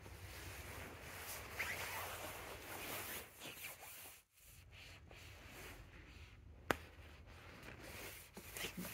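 Rustling and rubbing handling noise from a handheld camera as it is carried and moved, with a brief dropout about four seconds in and one sharp click a little later.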